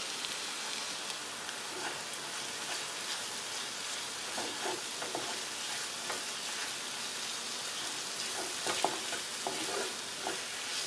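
Onion-tomato masala sizzling in a non-stick kadai while a wooden spatula stirs it, with fresh curry leaves just added. The spatula's soft scrapes and taps come more often in the second half, most of them near the end.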